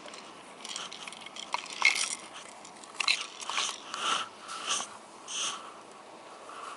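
Rustling and light knocks of things being handled and moved about, in a run of short crinkly bursts for about five seconds.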